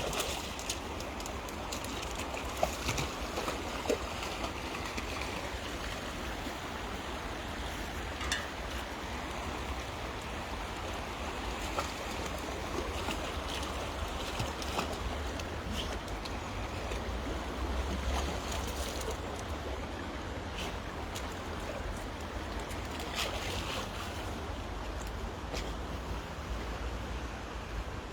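Steady rush of river water and rain, with scattered light taps throughout.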